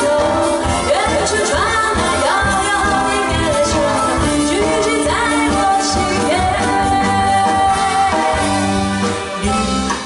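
A woman singing a pop song into a microphone, backed by a live band through a PA system, with sung notes that glide and are held over a steady band accompaniment.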